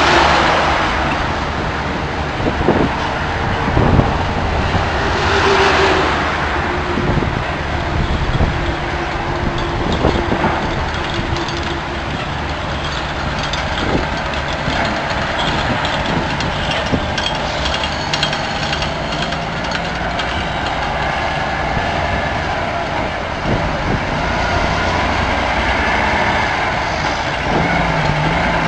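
A heavy vehicle engine running steadily, with a few sharp knocks and clunks over it.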